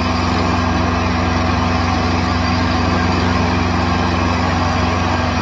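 Emco Unimat SL mini lathe running steadily, its small 90-watt motor humming at a constant speed as the chuck spins a brass bar.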